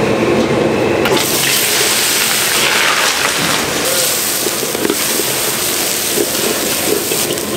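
Wok cooking in a Chinese-restaurant kitchen: a loud, steady rush of liquid and sizzling in a hot wok, which grows brighter about a second in.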